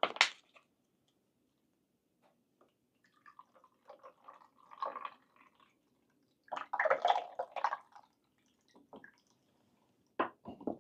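Salt water poured from a translucent plastic bag into the fill port of a salt-water generator's fuel-cell chamber, in two short spells of pouring about four and seven seconds in. A few light knocks at the start and near the end.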